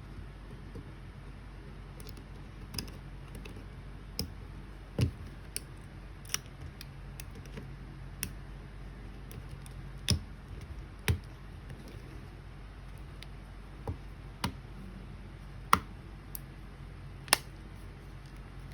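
Irregular small clicks and taps, as of tools and small camera parts being handled on a work surface, a few of them sharper, over a steady low hum.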